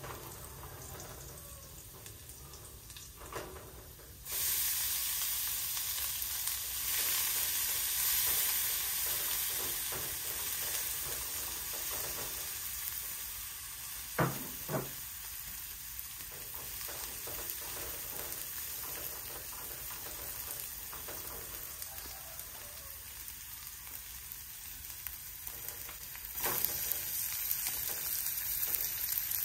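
Minced lemongrass sizzling in hot oil in an aluminium pan, stirred with chopsticks. The sizzle jumps louder about four seconds in and again near the end, when pieces of pork belly go into the pan. Two sharp knocks come about fourteen seconds in.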